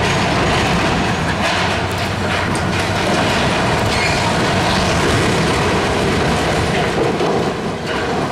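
Steel building structure and overhead bridge crane being torn down: a steady heavy rumble with constant metallic grinding, scraping and clanking, and a sharper clank about seven seconds in.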